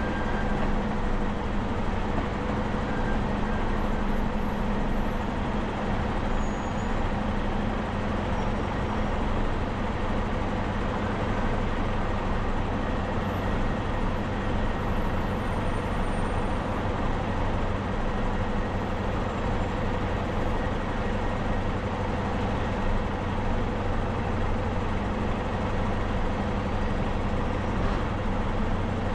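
Steady running noise of a car being driven, tyre and engine noise with a constant low hum and no sudden events.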